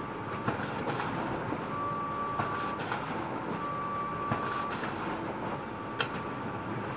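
HP Laser MFP 138fnw laser multifunction printer running a single photocopy: a steady mechanical whir with a high whine twice, each about a second long, and a few clicks.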